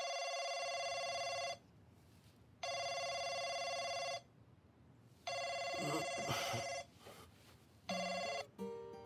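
Samsung mobile phone ringing for an incoming call: a steady ringtone in four rings about a second and a half long with a second's gap between them. The last ring is cut short as the call is answered, and there is some rustling during the third ring.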